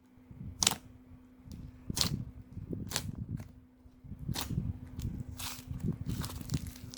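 Clay slime being squeezed and pressed by hand, with about five sharp popping clicks about a second apart over continuous soft squishing and handling.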